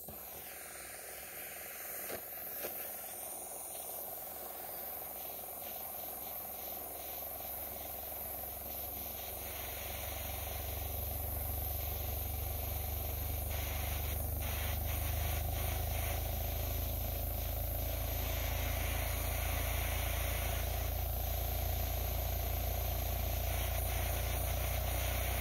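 Handheld gas torch burning with a steady hiss as it heats the hot end of a KYG SE905 Stirling engine. A low rumble grows from about ten seconds in and then holds.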